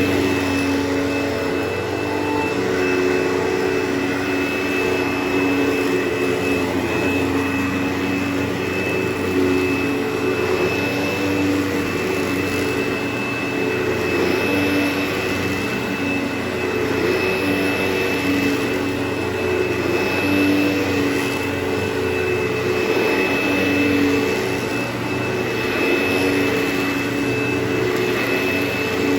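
Carpet-cleaning machine running with a steady motor whine, its airflow rushing louder and softer about every two seconds as it is worked back and forth over the carpet.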